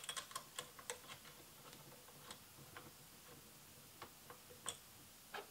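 Faint small metal clicks and ticks as a bolt is threaded in by hand to fix a cable-management bracket onto an aluminium camera-light cage: a quick run of them in the first second, then single ticks now and then.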